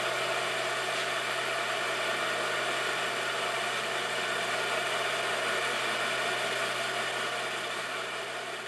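Logan metal lathe running steadily while boring out a cast iron blank, a continuous machine whir that dies away near the end.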